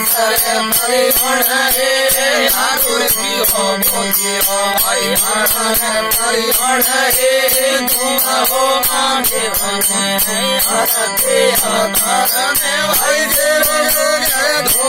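Marwari devotional folk music: a bending, ornamented melody over a steady drone, kept in time by fast, even jingling percussion.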